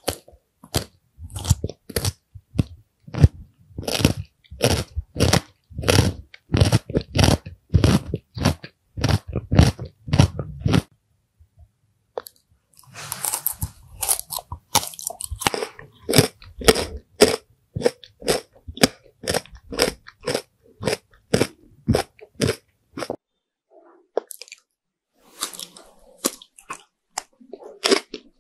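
Mouth biting and chewing crunchy food, sharp crunches coming about two a second. They stop for a moment about eleven seconds in, come back crisper and brighter, and pause once more near the end.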